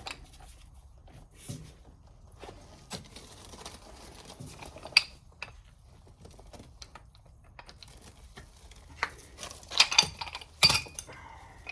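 Metal tools and brass fittings clinking and knocking as plumbing wrenches work on a water line: scattered light taps, with a louder run of clanks near the end.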